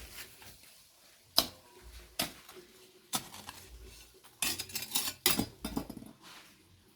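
Sharp metallic clinks and knocks of hard objects striking: single strikes every second or so, then a quicker clatter of several about two-thirds of the way through.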